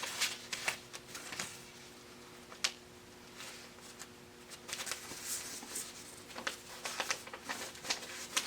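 Paper rustling and pages being handled and turned in irregular bursts, over a faint steady hum.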